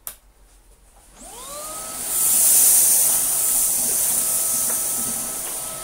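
Numatic NBV190NX cordless Henry vacuum switched on at normal speed: a click, then about a second later the motor spins up with a rising whine and settles into a steady run with a high hiss. The floor head is pushed across carpet.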